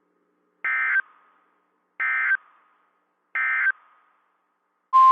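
NOAA Weather Radio Specific Area Message Encoding (SAME) data bursts: three short identical screeching digital bursts about a second and a half apart, the end-of-message code closing a severe thunderstorm warning. Just before the end, the steady 1050 Hz Warning Alarm Tone starts, announcing the next warning.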